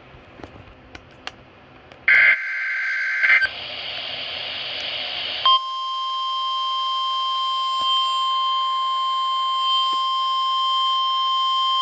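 NOAA Weather Radio weekly alarm test heard through a weather radio receiver. Faint static with a few clicks, then about two seconds in a short loud burst of two-tone digital data signal and a second brief burst, followed by hiss. About five and a half seconds in, the steady single-pitch warning alarm tone starts and holds.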